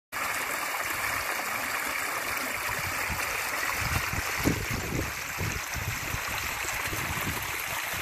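Small shallow stream running over stones, a steady rushing trickle of water, with a few dull low bumps about halfway through.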